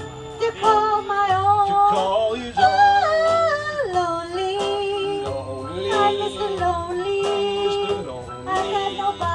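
Music playing: a lead melody of long, sliding, wavering notes over a steady beat.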